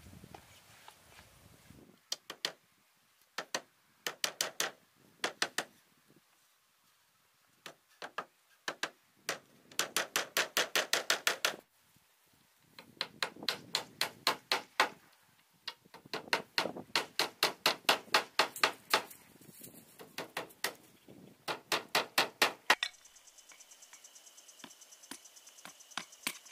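Hammer nailing wooden roof boards: runs of quick, even blows, several a second, with short pauses between runs. Near the end the hammering stops and crickets chirp steadily.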